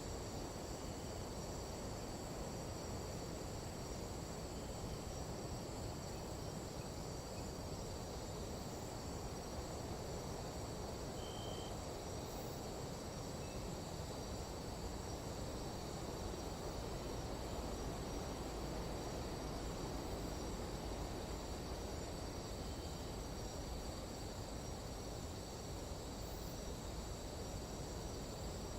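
Nighttime jungle insect chorus from Panama: several insects trilling steadily at high, unchanging pitches, over a constant low rushing noise, with a few faint short chirps here and there.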